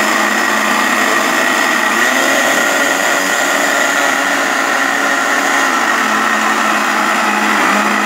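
Mallory Tornado 450 W blender running with water in the jar: a loud, steady motor whine, its pitch shifting slightly about two seconds in. The box rates this blender at 95 decibels of noise.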